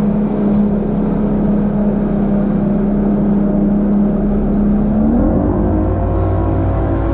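A boat's outboard motor running steadily, its pitch rising about five seconds in as the engine speeds up.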